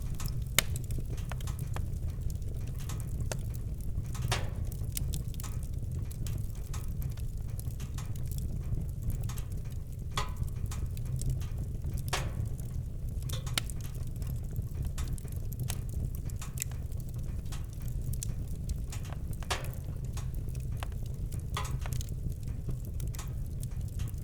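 Campfire crackling, with frequent irregular sharp pops and snaps over a steady low rumble.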